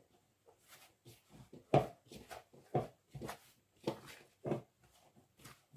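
Hands squeezing and clumping shortcrust pastry dough together in a plastic mixing bowl, a little water just added: a string of soft, irregular squishing and knocking sounds, about one or two a second.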